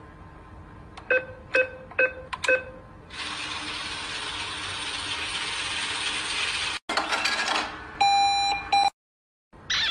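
Edited-in comedy sound effects: four quick pitched blips about a second in, then a long steady hiss that cuts off abruptly after a few seconds. A few clicks follow, then a held electronic beep near the end.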